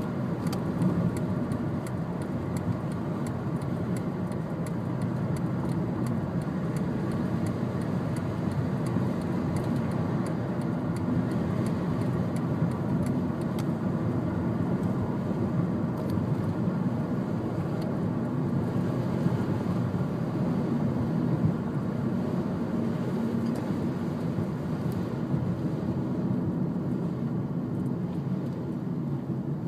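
Steady rumble of a car driving, heard from inside the cabin.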